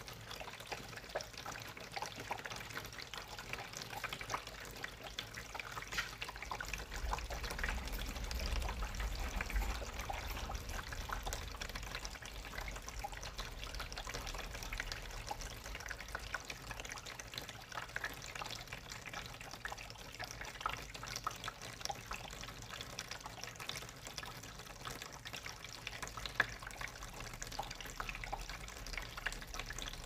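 Water running and trickling through grey PVC drain pipes, with many small scattered ticks and a low rumble that swells about seven to ten seconds in.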